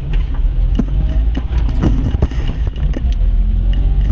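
Car driving on a rough, uneven road: a steady low rumble of engine and road noise, with several short knocks and rattles from the bumps.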